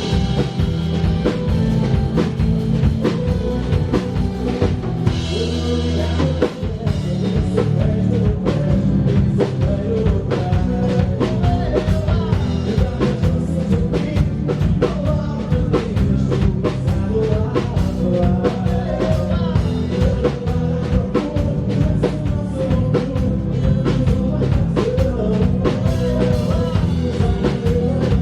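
A live band playing a song with a drum kit keeping a steady beat under a bass line and a sung melody, heard from the stage. About five to six seconds in the band holds a low note before the beat picks up again.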